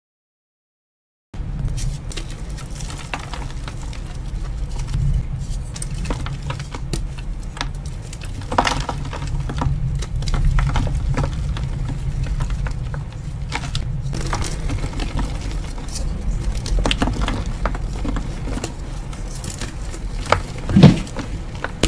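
Hands squeezing and crumbling blocks of dyed gym chalk (reforms), a steady crackle of many small crunches and clicks with a dull low rumble from the handling, starting suddenly after a second of silence. A louder knock comes near the end.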